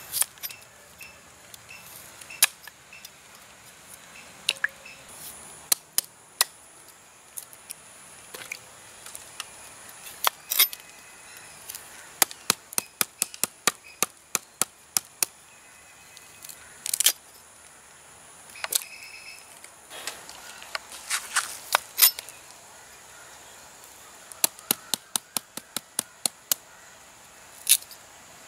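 Large kitchen knife chopping through firm, unripe hog plums and striking a wooden chopping block: a string of sharp, irregular chops, some coming in quick runs of two or three a second.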